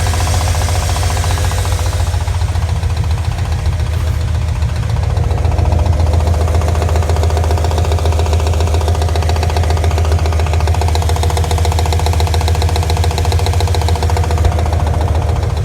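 Mazda RX-7 rotary engine idling with a rapid, steady knock running through it, the engine knock the video is about.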